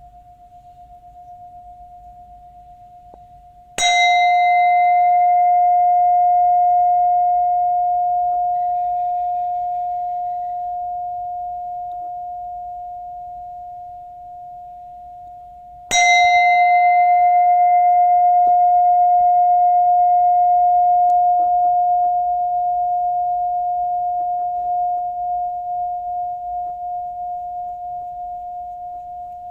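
Buddhist bell struck twice, about twelve seconds apart. Each strike rings one clear, steady tone that fades slowly. The faint ring of an earlier strike is still dying away at the start.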